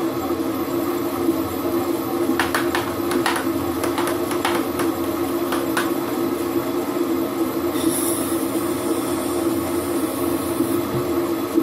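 Holbrook C8 metal lathe running steadily during internal thread cutting, a constant mechanical hum. A run of sharp clicks comes a couple of seconds in, and a brief high hiss near the end.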